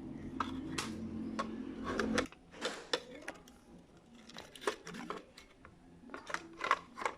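Irregular small clicks and taps of an analog alarm clock's plastic parts being handled during repair. A steady low hum cuts off suddenly about two seconds in.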